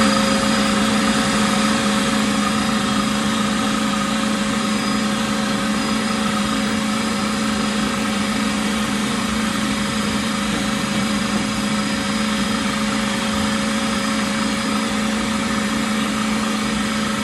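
Vacuum cleaner running steadily with a constant high motor whine, sucking lint out of a dryer vent.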